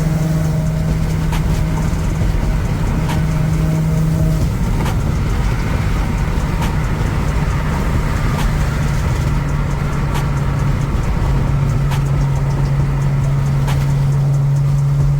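Car driving at a steady pace, heard from inside the cabin: a steady low engine hum over road and tyre noise, shifting pitch slightly a couple of times.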